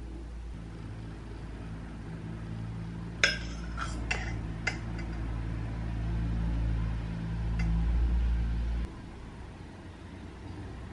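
Metal spoon clinking against glass as whipped dalgona coffee foam is spooned onto milk: one sharp clink about three seconds in, a few lighter clicks just after, and one more later. Under it a steady low hum runs and stops abruptly near the end.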